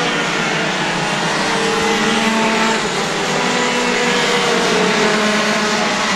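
Several racing kart engines running at speed on the circuit. Their pitches overlap and slide up and down as the karts accelerate and slow through the corners.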